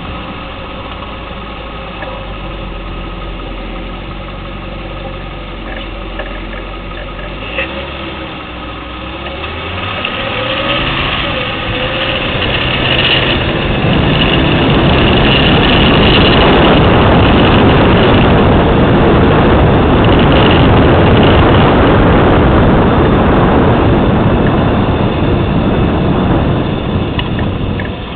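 2010 Lexus LS 460L's V8 running at idle. From about ten seconds in, a loud, steady rushing noise builds up and holds until near the end, then drops away.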